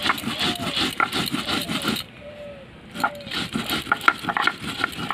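Stone roller (nora) worked back and forth on a flat grinding stone (shil), crushing garlic, green chillies and black cumin to a paste: repeated gritty scraping and knocking strokes. The strokes pause for about a second partway through, then start again.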